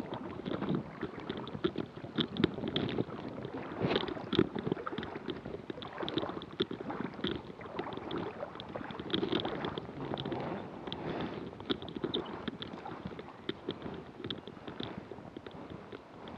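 River water sloshing and lapping right at the microphone, with irregular small splashes and gurgles, as if from a camera sitting at the water's surface.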